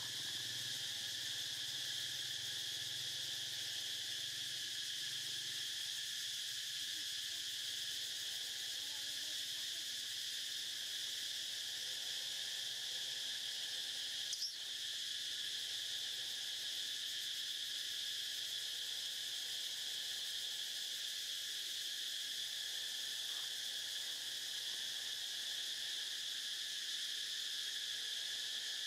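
A steady chorus of insects drones on several high pitches at an even level, with one brief sharp click about halfway through.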